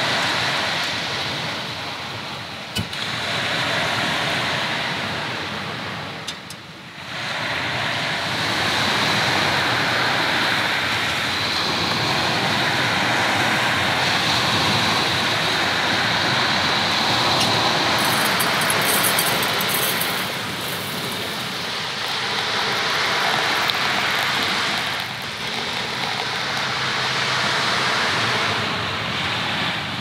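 Sea waves breaking and washing on the shore: a steady rushing surf that swells and ebbs, dipping briefly about six seconds in and again later on.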